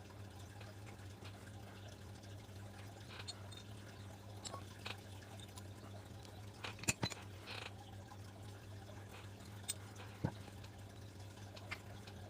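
Scattered sharp clicks and taps of small clutch master cylinder parts being handled and fitted together during reassembly, the loudest a couple of clicks about seven seconds in and one about ten seconds in, over a steady low hum.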